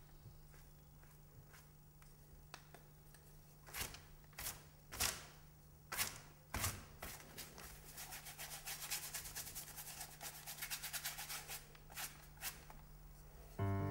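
Wide bristle paintbrush swishing and scrubbing wet paint onto paper pinned to a wall: a handful of separate strokes, then a quick run of short scrubbing strokes, several a second. Piano music comes in right at the end.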